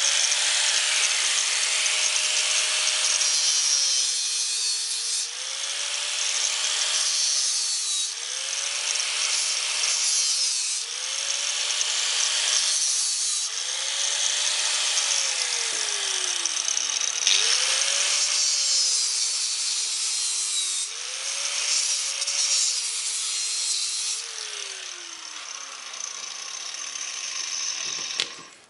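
Angle grinder with a cutting disc cutting into the copper-wound stator of a refrigerator compressor motor. The grinder's whine sags each time the disc bites into the metal and picks up again between cuts, about eight times. Near the end the grinder is switched off and its whine falls away as the disc spins down.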